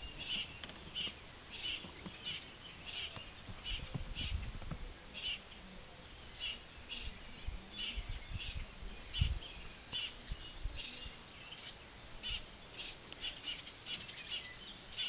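Small birds chirping over and over in short high calls, with irregular low rumbles and thumps underneath.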